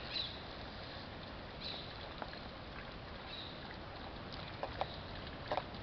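Water running steadily from an outdoor drinking-fountain tap into its stone basin. Near the end come a few short wet clicks and splashes as an Alaskan Malamute drinks from the stream.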